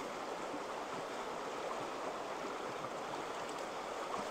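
Shallow rocky stream running steadily, with light water sounds from a plastic gold pan being dipped and worked in it.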